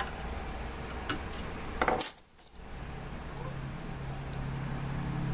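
Light metallic clicks and clinks of a screwdriver working at small steel screws in the metal parts of an old sander, with one sharp click about two seconds in. A steady low hum comes in about a second later.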